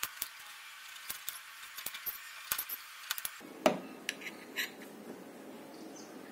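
Miniature knife cutting through raw potato on a small board: a scatter of short crisp clicks and taps, the sharpest about three and a half seconds in.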